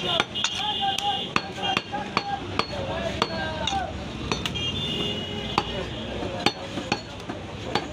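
A butcher's knife and cleaver knocking sharply and irregularly on a wooden tree-trunk chopping block while beef is cut up, about a dozen knocks in all.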